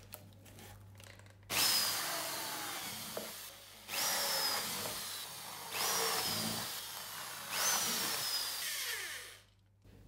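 Electric drill run in four short bursts, each starting suddenly and lasting about two seconds, its motor whine falling in pitch through each run.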